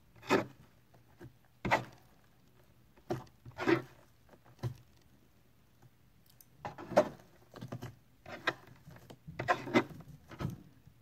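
Fluffy slime being mixed and kneaded by hand, making short, sticky squelches and pops at uneven intervals, about a dozen in all, with quiet gaps between.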